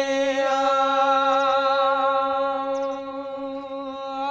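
Unaccompanied Gojri folk song: a single voice holds one long, steady note that fades slowly toward the end.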